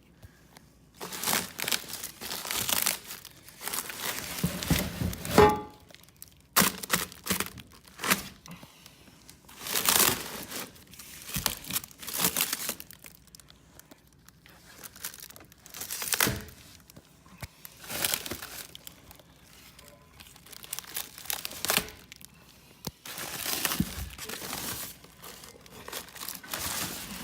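Packing material crinkling and tearing in irregular bursts as parts are dug out of a hardware box for a winch bumper.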